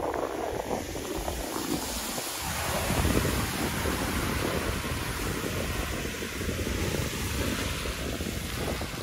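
Small waves breaking and washing up over a dark gravel beach, a steady hiss of surf, with wind buffeting the microphone as a low rumble.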